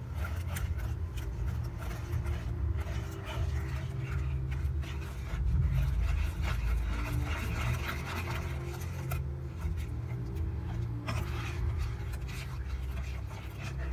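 Spatula stirring a milk and bread pudding mixture in a saucepan, scraping and rubbing round the pan with light knocks against its side, over a steady low hum.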